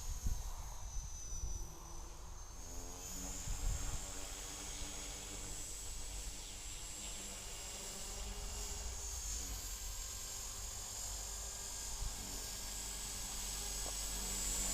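Copter X 450 electric RC helicopter running after a repair of its broken shaft: a steady high motor-and-gear whine over a low rotor hum. The whine dips in pitch about two seconds in, then holds steady, and the sound grows louder near the end.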